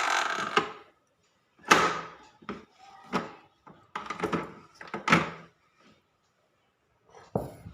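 A mini wet grinder being taken apart after grinding: a series of sharp knocks and clunks, about one a second, as its parts are lifted off and set down.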